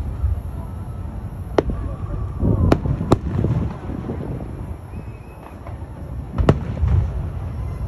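Aerial fireworks going off: several sharp bangs of shells bursting, spread out with a few seconds' gap in the middle, over a low rumble.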